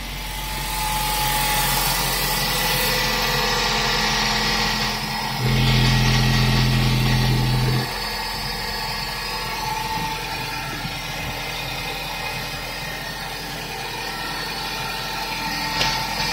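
Suzuki M16A 1.6-litre inline-four petrol engine idling steadily, heard up close under the open bonnet. For about two seconds near the middle it grows louder with a deeper steady hum, then settles back.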